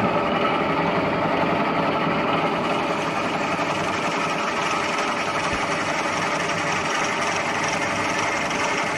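Vertical milling machine running steadily, its spindle spinning an edge finder that is being brought up to the vise jaw to locate the part's edge.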